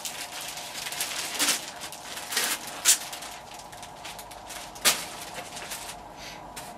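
Clear plastic bag crinkling and rustling as a foam flying wing is slid out of it, with two sharper crackles about three and five seconds in.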